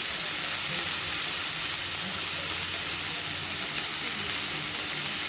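Onion, tomato and ginger-garlic sautéing in hot oil in a kadai, with a steady, even sizzle.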